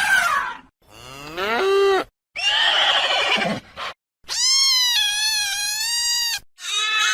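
A run of separate animal calls, each a second or two long with short silences between. One call rises steeply in pitch, and a longer, high, wavering call comes in the middle.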